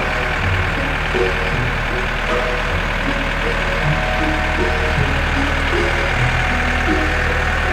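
Cartoon truck engine sound effect running steadily, with light background music notes over it.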